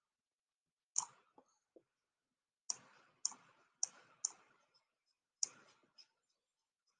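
Computer mouse button clicks, about six of them at uneven intervals, the first the loudest, made while dragging node handles in a drawing program.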